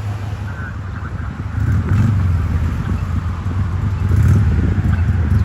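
A heavy vehicle's engine running with a low rumble that grows louder about a second and a half in. The tail of an electronic siren fades out right at the start.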